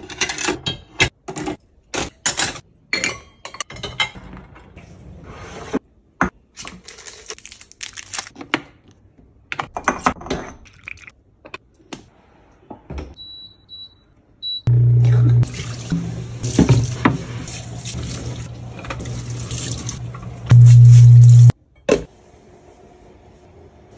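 Dishes and dishwasher racks clattering with many sharp clicks, then scattered clicks and a short high beep. After that comes about seven seconds of rushing water with a loud low hum, which is loudest at its start and again near its end and cuts off suddenly.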